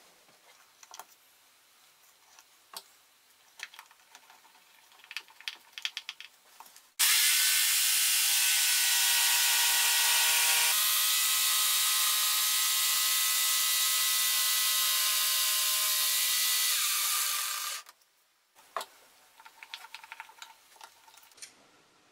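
Electric jigsaw cutting an arc in a wooden board on a pivoting circle jig: a steady, loud run of about ten seconds whose pitch shifts once partway, then stops suddenly. Before and after it, small clicks and knocks from handling the jig and its pivot pin.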